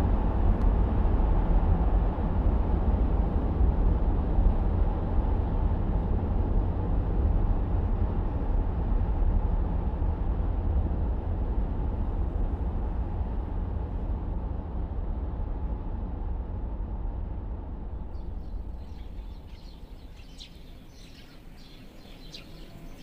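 Moving car's engine and road rumble, a steady low drone that fades away over the last few seconds. Faint bird chirps come in near the end.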